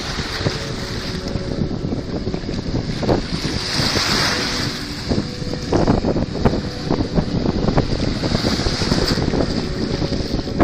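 Sea waves washing and splashing, with two larger swells of surf about four and nine seconds in, and wind rumbling on the microphone.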